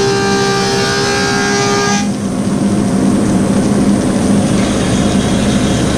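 Woodmaster 725 planer cutting a hardwood slab, giving off a steady ringing, singing tone of several pitches at once. The tone cuts off suddenly about two seconds in as the cut ends, and the planer runs on with a lower steady hum.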